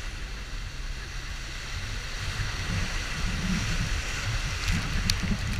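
Water rushing and spraying under an inflatable banana boat towed at speed over the sea, with a pulsing low rumble from wind on the microphone. The rumble grows a little louder about halfway through, and a few sharp ticks come near the end.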